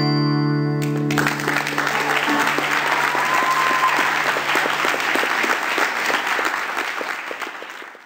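Final chord of electric guitar and keyboard held for about a second, then an audience applauding, which dies away near the end.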